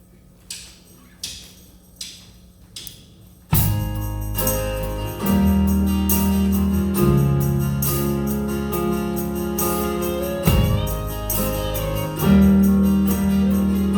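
Four evenly spaced percussive count-in hits, then about three and a half seconds in the instrumental intro of a song comes in loudly, with a low bass and held chords.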